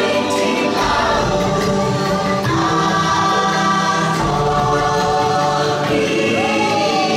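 Choral music: a choir of voices sings long held notes over sustained chords, with a falling vocal glide near the end. This is the boat ride's background soundtrack.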